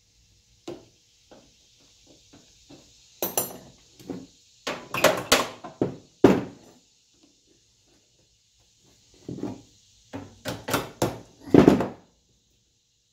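Irregular metal knocks and clinks, some hard thuds among them, in several bursts: a wheel, spacer, washer and retaining pin being worked onto a wheel axle by hand.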